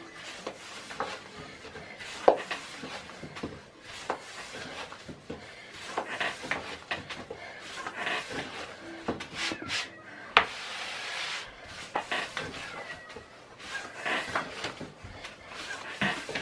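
Wooden rolling pin rolling out dough on a wooden board: irregular rubbing with scattered wooden knocks and clacks.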